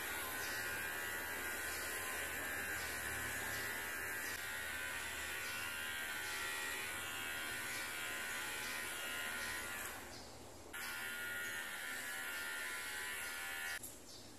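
Small electric pet hair clipper buzzing steadily as it trims a long-haired cat's fur. It breaks off briefly about ten seconds in, starts again, and switches off near the end.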